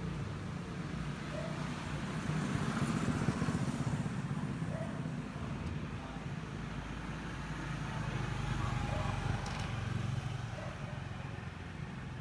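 Ryobi OLT1832 18V cordless string trimmer running with its nylon line spinning, a steady motor-and-line whir that swells about two seconds in and again around nine seconds.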